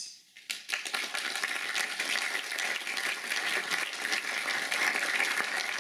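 Audience applauding, a dense steady patter of many hands clapping that starts about half a second in.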